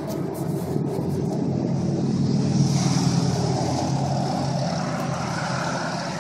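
A motor vehicle's engine running with a low steady drone that swells to its loudest about three seconds in and then eases off.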